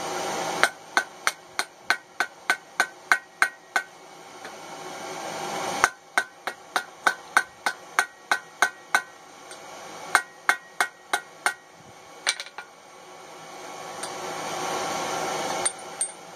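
Hand hammer striking a chain link on a steel anvil in three quick runs of blows, about three a second, each blow with a short metallic ring, then a few single knocks near the end.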